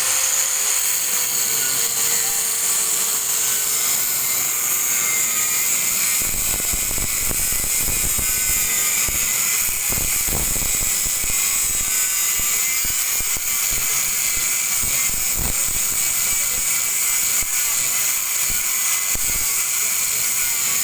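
Angle grinder running at speed and cutting steel L-drop hooks: a steady high whine over a wide grinding hiss, with scattered low knocks through the middle.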